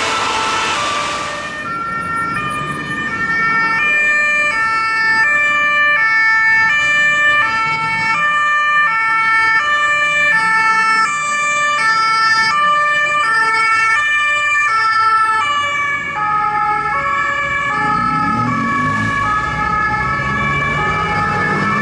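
Two-tone sirens of unmarked police cars, stepping back and forth between a high and a low note, with more than one siren sounding at once. Car engines and traffic sound underneath toward the end.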